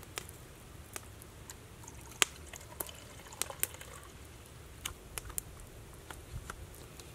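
Campfire crackling, with irregular sharp pops about once or twice a second over a low, steady wind rumble.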